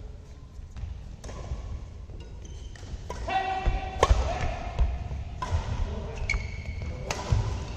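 Badminton rally: rackets sharply striking the shuttlecock several times, the loudest hit about four seconds in. Shoes squeak briefly on the court floor among the players' footfalls.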